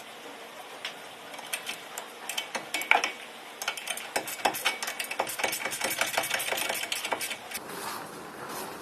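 Metal hand tools clicking and clinking against steel suspension parts while a tie rod end is refitted, with a run of quick, close-spaced clicks in the middle that then eases off.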